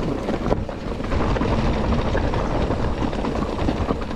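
Wind rushing over the microphone, with the rumble and rattle of a mountain bike rolling over rough trail: a steady low roar dotted with small clicks and knocks.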